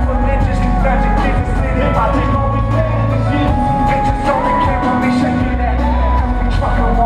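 Live hip-hop performance played loud: a rap track with heavy, long bass notes and a steady drum beat, with vocals over it.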